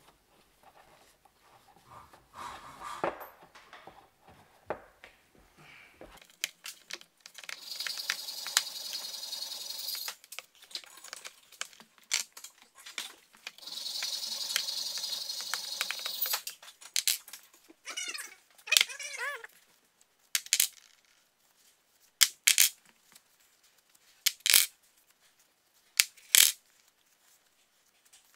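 Steel connecting-rod caps and bolts clinking and ringing as they are handled and set down on a workbench, with several sharp single clinks in the second half. Two steady hissing stretches of a couple of seconds each come from cleaning old oil off the parts.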